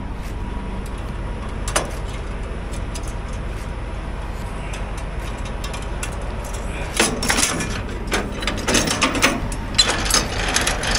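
Truck engine idling with a steady low hum. From about seven seconds in, a run of sharp metallic clicks and clanks from trailer hardware being handled.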